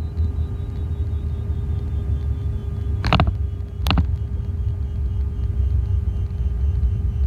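Low, steady rumble of a Cessna 310's twin piston engines heard inside the cockpit through the intercom, with a thin steady hum over it. Two short sharp clicks come about three and four seconds in.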